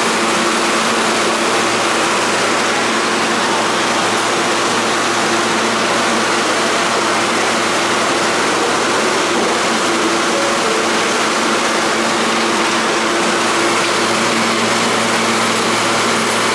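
An R160 subway train standing in a station with its doors open, idling. Its air conditioning and onboard equipment give a steady hum under a broad, even hiss.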